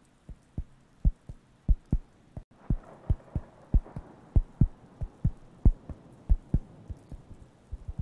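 Fingers tapping a round wooden coaster held close to the microphones, giving soft low thuds about three times a second. From about three seconds in, a faint rubbing hiss runs under the taps.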